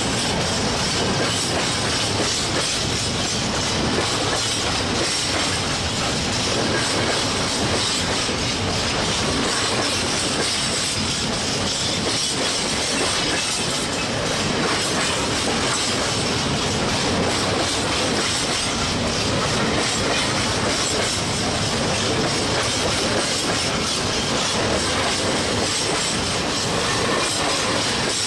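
A heavy train rolling over bad rail joints, its wheels clattering continuously over the joints. The sound holds steady and loud throughout.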